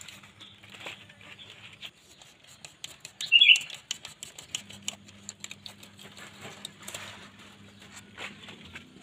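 Mustard green leaves rustling and stems crackling as the plants are handled and cut at the base with a utility knife, with many small irregular clicks. One louder, short high squeak comes about three and a half seconds in.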